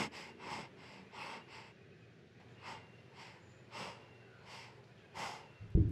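Cartoon mouse's breathing sound effect: a series of faint breathy puffs that slow down and fade, with a couple of low thumps near the end.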